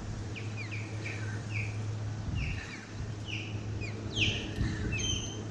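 Small birds chirping repeatedly, a quick series of short downward-sliding notes, with a steady low hum underneath.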